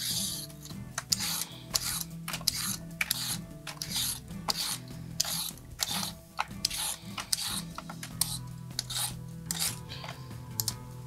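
A carrot being peeled: repeated short scraping strokes, about two a second, over soft background music.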